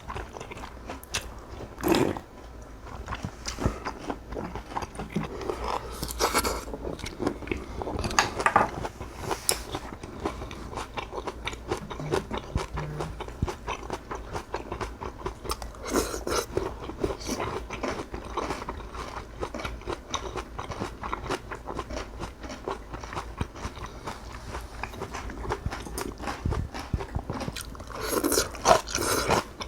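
Close-miked eating sounds: a person chewing and crunching mouthfuls of cockle bibimbap and young-radish kimchi, a steady run of small wet clicks with a few louder bites and scrapes along the way.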